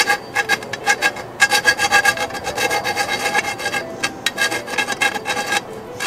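Hand file scraping across the cut end of a soft 3/4-inch copper pipe in quick back-and-forth strokes, the pipe ringing with a steady tone under each stroke. The filing smooths the freshly cut end. It pauses briefly about four seconds in and again just before the end.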